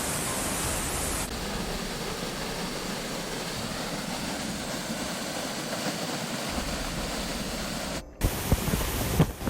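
Steady rushing noise that changes tone slightly a little over a second in and breaks off briefly about eight seconds in, followed by irregular low thumps like wind buffeting the microphone.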